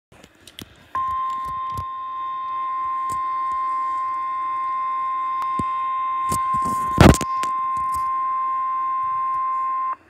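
NOAA Weather Radio warning alarm tone, a steady 1050 Hz beep from a portable weather-band radio's speaker, starting about a second in and lasting about nine seconds: the signal that a warning broadcast follows. A sharp knock about seven seconds in.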